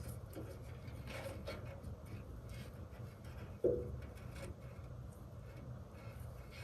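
Scrap pieces of wood being knocked and shifted into place as wedges under the mill's ladder rail: a few scattered knocks and scrapes, with one sharp wooden knock about three and a half seconds in.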